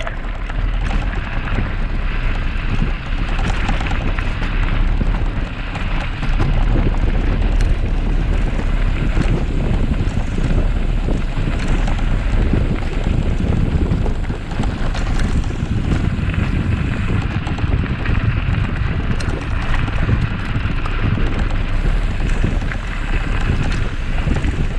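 Wind buffeting the microphone of a handlebar-mounted camera while a Trek 1120 bicycle rolls steadily over a gravel trail, with tyre crunch and rumble from the loose stones.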